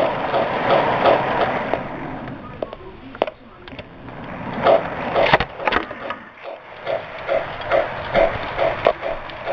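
O scale model train running on its track, its wheels clicking in a steady rhythm of about three clicks a second over the rail joints, with a running rumble underneath. The clicking fades for a couple of seconds in the middle, then a few sharper knocks come before the rhythm picks up again.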